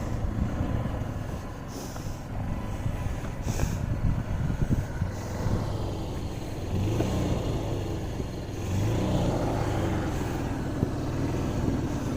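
Strong gusty wind buffeting the microphone in a continuous low rumble, with an engine running underneath that swells for a few seconds about two-thirds of the way through.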